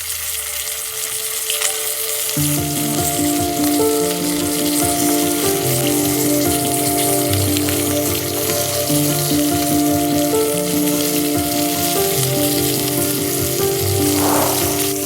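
Fish frying in hot oil in a pan: a steady crackling sizzle, with background music over it.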